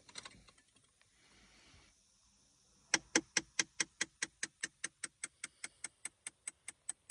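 Rapid, even clicking from inside a car's dashboard, about five clicks a second, starting about three seconds in; the knock is present with the engine off.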